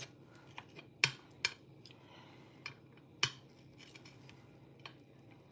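Metal kitchen utensils clinking and tapping against cookware: about four sharp clinks with a few fainter ticks between them, over a faint steady low hum.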